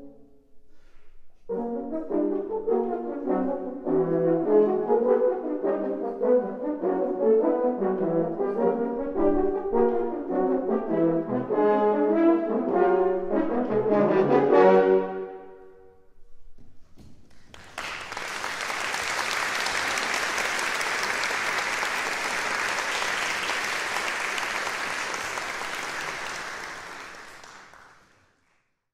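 French horn quartet playing the last bars of a piece: rapid short notes that break off about 15 seconds in. Then audience applause from about 18 seconds, dying away near the end.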